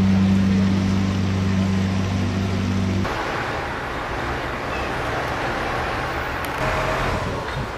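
Outdoor city street sound: a steady low hum, then after about three seconds an abrupt change to the even rushing noise of road traffic.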